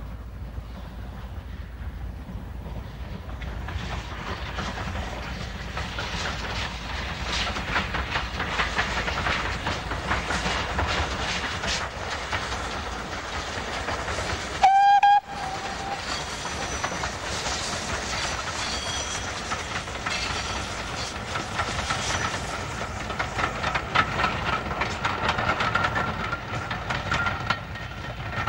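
GWR Collett 2251 class 0-6-0 steam locomotive hauling a passenger train past, its exhaust beats and wheels on the rails getting louder as it nears. About halfway through it gives one short blast on its whistle.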